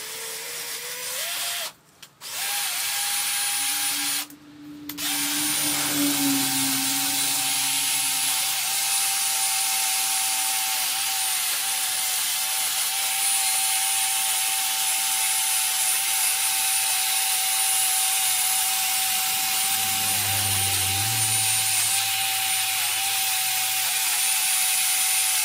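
Small handheld rotary power tool with an abrasive pad grinding the cast-iron top deck of a Chevy small-block engine block to smooth it, a steady whine over a hiss of abrasive on metal. It stops briefly twice in the first few seconds, then runs without a break.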